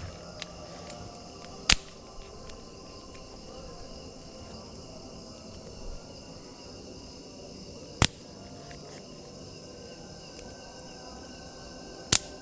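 Campfire crackling, with three sharp pops from the burning wood, over a steady high trilling of night insects.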